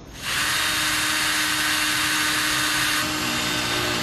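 A steady motor whir with an even hiss and a low hum, starting just after the start; about three seconds in it eases slightly and the hum drops in pitch.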